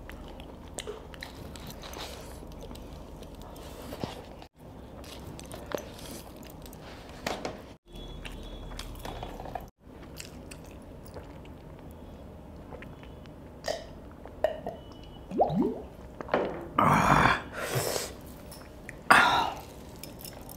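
A man eating fried chicken: chewing and biting with small wet mouth clicks, then a few louder throaty bursts near the end.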